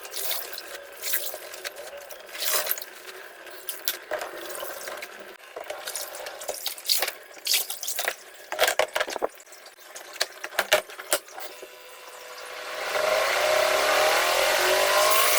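Water splashing and knocking as wet laundry is handled in a twin-tub washing machine. About 13 seconds in, the machine's motor starts and spins up with a rising whine.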